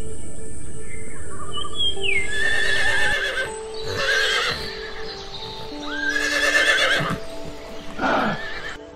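A horse whinnies four times, each a quavering, wavering call, starting about two seconds in; the last whinny falls in pitch. Steady background music plays underneath.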